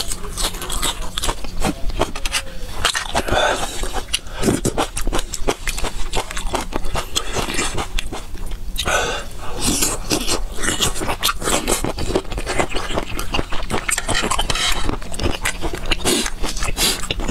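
Close-miked eating sounds: wet chewing and lip smacking on shrimp in chili sauce and fresh vegetables, with many sharp clicks following one another.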